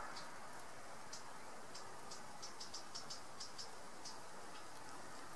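Faint chirping of a stridulating insect: short dry ticking bursts, several a second in an uneven rhythm, over a low steady outdoor hiss.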